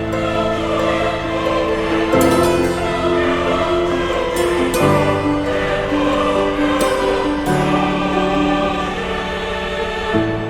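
Background music: sustained choral chords with singing, the chord changing every two to three seconds.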